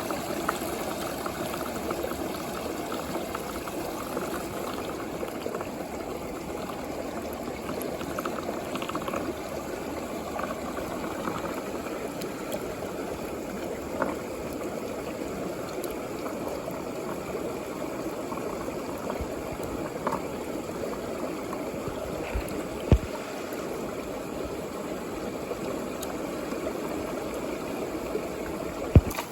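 Water swirling and bubbling in a plastic tube as a whirlpool vortex, a steady churning, with a couple of sharp knocks, one about two-thirds of the way through and a louder one near the end.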